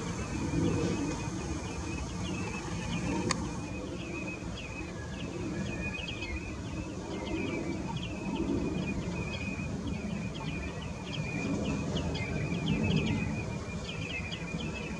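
Birds calling over and over in short high chirps, over a steady low rumble, with one sharp click about three seconds in.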